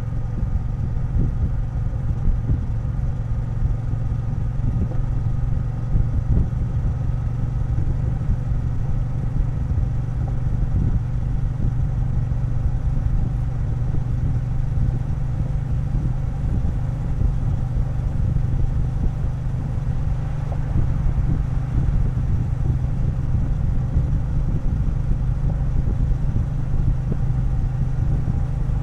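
Triumph Bonneville T120's parallel-twin engine running at a steady pace while riding, a continuous low hum and rumble.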